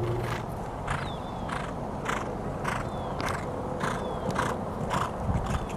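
Horse cantering on grass: a short rhythmic rush of sound about twice a second, in time with its stride, most likely its breath blown out with each canter stride.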